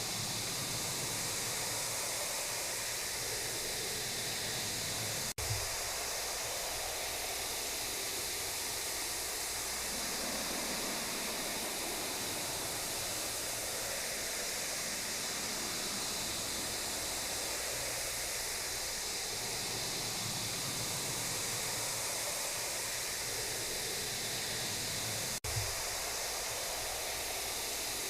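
Steady hiss of static-like noise with a low hum underneath, and a brief click about five seconds in and again near the end.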